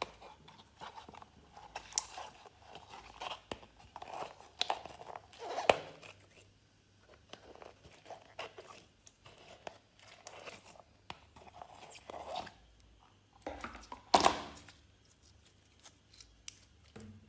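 Glossy slime being worked by hand, giving off irregular crackles and clicks in short bunches, loudest about 2, 6 and 14 seconds in.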